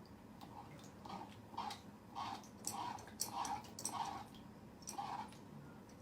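A cat chewing food with a run of about eight smacking, clicky chews, roughly two a second, stopping just after five seconds in.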